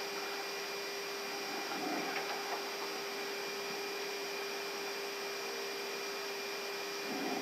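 Steady fan-like hiss with a constant hum tone: the ambient noise of an Airbus A380 flight deck parked at the gate, with its ventilation and equipment running.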